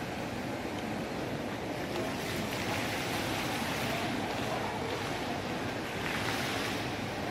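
Steady wash of ambient noise under a large indoor mall atrium, swelling and easing slowly a couple of times.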